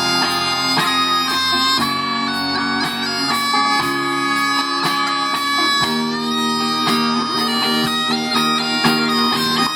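Bagpipes playing a melody over their steady drones, with a regular beat underneath.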